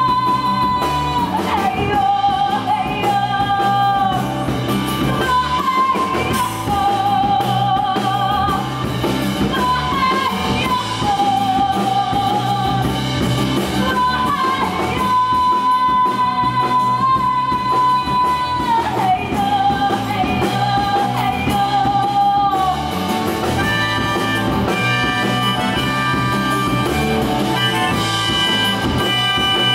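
A live rock band plays: a female vocalist sings long held notes over electric guitar, bass, keyboard and drums. Her voice drops out about three-quarters of the way through, leaving the band playing.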